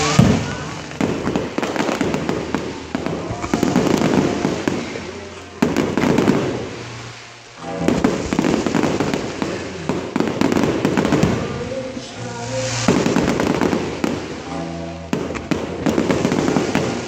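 Fireworks display: aerial shells and fountains banging and crackling in a dense, rapid run. It eases briefly about halfway through and then picks up again, with music playing underneath.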